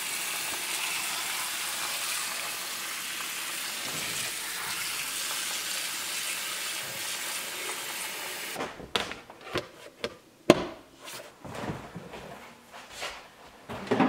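Kitchen faucet running a steady stream of water into a glass bowl of diced potatoes and carrots, filling it to cover them. The water shuts off abruptly a little past halfway, followed by a series of sharp knocks and clinks as the bowl is handled.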